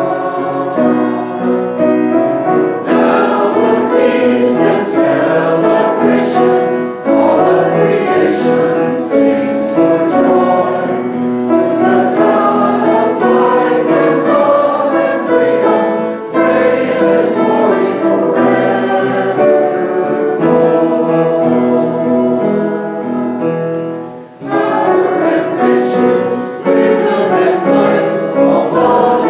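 A group of voices singing a hymn together, with instrumental accompaniment, in sustained chords.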